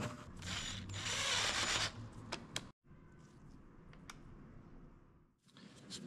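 Hand-tool work on a small bolt in an electric unicycle's plastic casing. There are about two seconds of mechanical rasping, then two sharp clicks, and after that only faint room tone with a single click.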